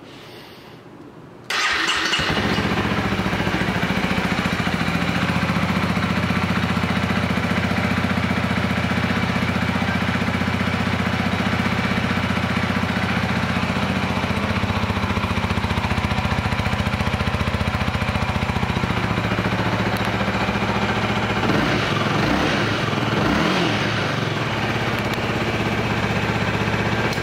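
2018 Honda Rebel 300's single-cylinder engine is started about a second and a half in and idles steadily. Its note wavers briefly a few seconds before the end, and then it is shut off.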